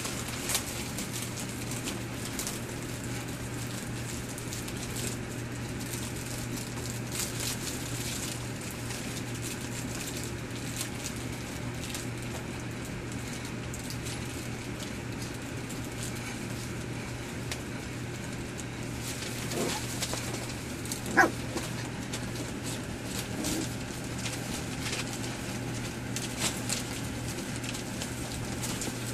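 Pembroke Welsh Corgi puppies scuffling and playing on a newspaper-lined floor: rustling paper and pattering paws, over a steady low hum. About two-thirds of the way through, one short, high-pitched squeak from a puppy stands out as the loudest sound.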